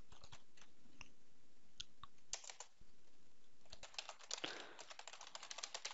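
Typing on a computer keyboard: a few scattered key presses, then a fast run of keystrokes from about four seconds in.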